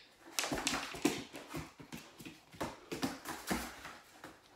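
A dog's paws stepping and scuffing inside a cardboard box: irregular taps, knocks and scrapes of claws and pads on the cardboard, thinning out near the end.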